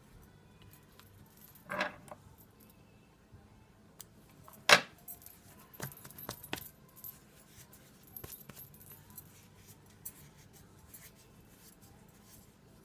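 Stacked thin metal bangles clinking against each other on a moving wrist: scattered sharp metallic clinks, one much louder than the rest a little before the middle, among lighter taps.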